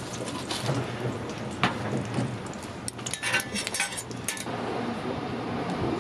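Metal tongs clinking and tapping against a steel griddle and rack while a hotteok is folded into a paper cup. One sharp clink comes near two seconds in, then a quick cluster of clinks between three and four and a half seconds in.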